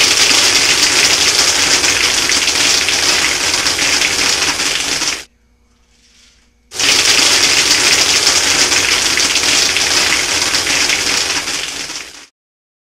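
Homemade soda-bottle airsoft machine gun, run by compressed air through an air compressor blow gun, firing two long bursts of about five seconds each with a pause of about a second and a half between them. Each burst is a loud hiss of air with a dense crackle of pellets hitting the target, and the second burst cuts off suddenly.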